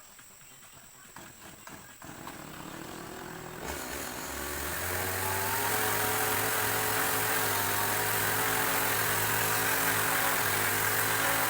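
An engine starts up a few seconds in, its pitch stepping up as it settles, then runs steadily at a constant speed.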